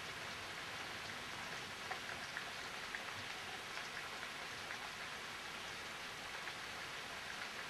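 Steady rain from a thunderstorm falling: an even hiss with scattered individual drops ticking.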